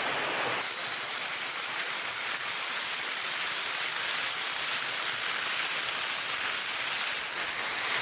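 Steady rush of a small waterfall pouring down a rock face and splashing onto the stone.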